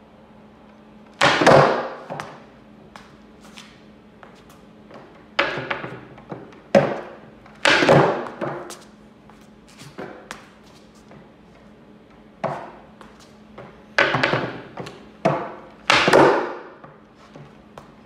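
Skateboard repeatedly striking a concrete floor: about eight sharp clacks and landings, each ringing out and echoing in the hard-walled space. The loudest come about a second in, around eight seconds in, and near the end.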